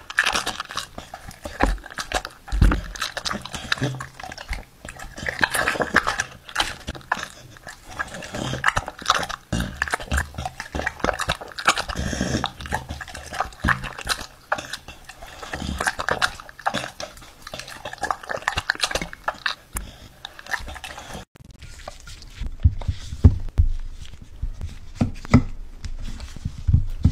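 Dogs eating close to the microphone: rapid, irregular wet smacking, licking and crunching clicks. About three quarters of the way through, the sound switches to a different, quieter recording.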